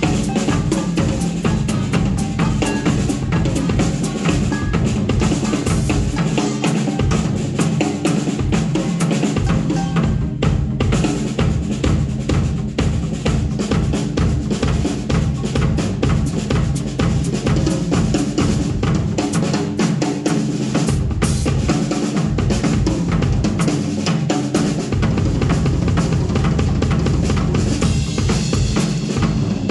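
A drum kit playing continuously, with bass drum, snare and rimshot hits over steady low notes.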